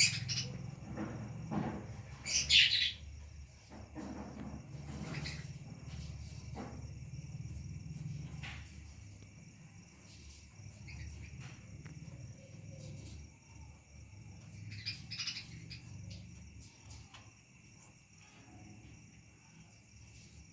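Pet finches chirping with short, high calls scattered through, the loudest cluster a couple of seconds in and another near the middle, over a low steady rumble.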